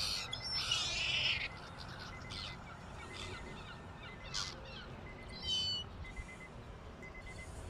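Seagulls calling: a dense cluster of overlapping calls in the first second and a half, then scattered single calls, with louder ones around the middle.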